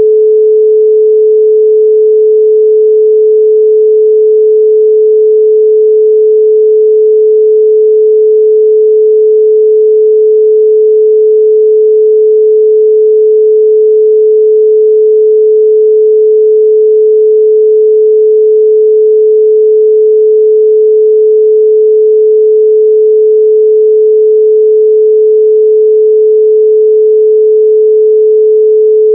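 A 432 Hz pure sine tone, held loud and perfectly steady with no other sound.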